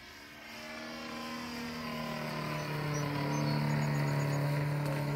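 Desert Aircraft DA-70 twin-cylinder two-stroke gasoline engine with a canister muffler, running steadily in a large RC plane flying overhead. It grows louder over the first three seconds or so as the plane comes closer, then holds, its pitch easing down slightly as it passes.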